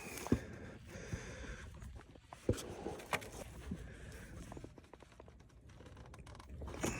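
A few sharp metallic clicks and knocks of pliers squeezing a pickup's transfer case shifter linkage rod back into its fitting, loudest about a third of a second in and again about two and a half seconds in.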